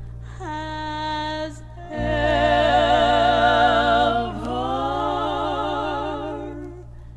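1970s southern gospel recording: held, wavering notes over a steady low bass, fading out near the end.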